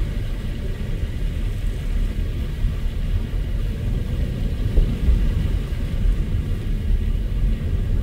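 Car being driven at a steady pace: a steady low rumble of engine and tyre noise.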